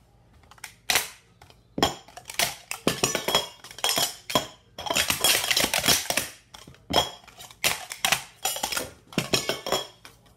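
All-metal Super Stacks sport-stacking cups being stacked up and down in a 3-6-3 sequence: a fast run of metallic clanks and clatters as the cups are set down and slid together, with a bright ringing note from the metal.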